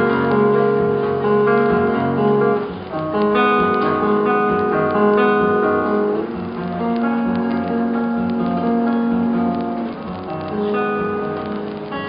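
Cutaway acoustic guitar playing a slow instrumental intro, its chords ringing and changing about every three to four seconds.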